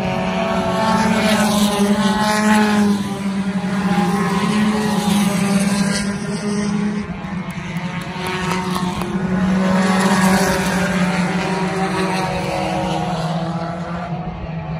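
Several dirt-track race cars running at high revs on the oval. The combined engine note gets louder twice as the cars pass, and the pitch glides up and down.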